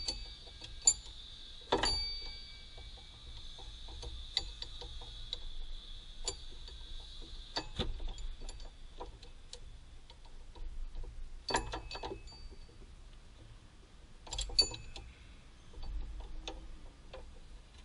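Irregular metal clicks and ticks from a long hand tool being worked against the engine's front-end parts around the crankshaft pulley and drive belt, with a handful of sharper clacks scattered through.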